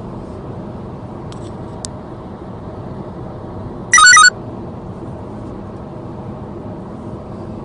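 Steady low rumble of a vehicle, broken about four seconds in by a short, very loud electronic chirp, like a phone notification tone. Two faint clicks come before it.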